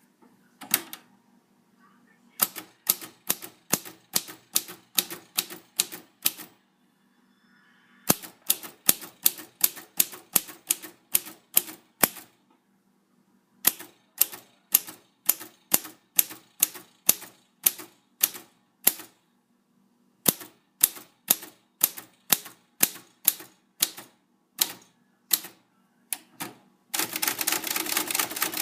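1948 Royal Quiet De Luxe portable typewriter being typed on: typebars striking at about three keystrokes a second, in four runs with short pauses between, then a fast, dense clatter of strikes near the end.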